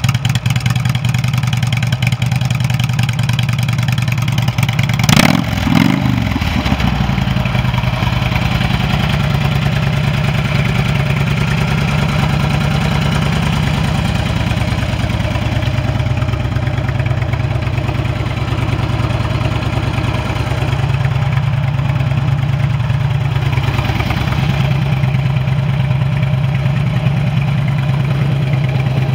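2007 Harley-Davidson Ultra Classic's air-cooled Twin Cam 96 V-twin idling steadily. It is revved once about five seconds in, the pitch rising and falling back to idle.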